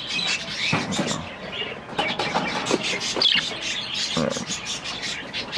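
A flock of budgerigars chattering, with many quick, overlapping high chirps and warbles.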